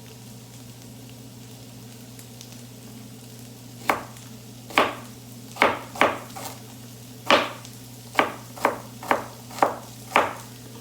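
Knife chopping through a Brussels sprout: about ten sharp strikes starting about four seconds in, roughly two a second, each with a short ring. Faint sizzling from the frying pan underneath.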